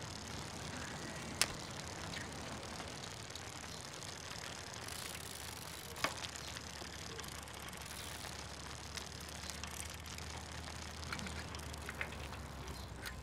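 Someone working on an upturned Bonanza-style bicycle: a few sharp metallic clicks and ticks from the bike and tools, the two loudest about a second and a half in and about six seconds in, over a faint steady hiss.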